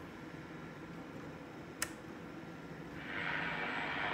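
A sharp click from the Marc NR-82F1 radio's band switch just under two seconds in, then from about three seconds the radio's speaker gives out an even static hiss.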